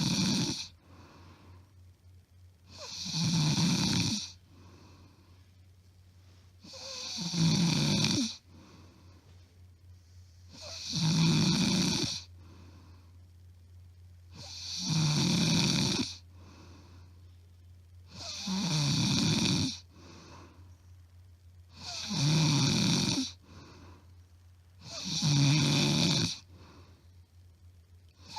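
A woman snoring loudly in deep sleep, close to the microphone: a rattling snore on each in-breath, repeating evenly about every three and a half to four seconds with quieter breathing between. The rhythm is regular, with no pauses in breathing, and the uploader says it is plain loud snoring, not sleep apnea.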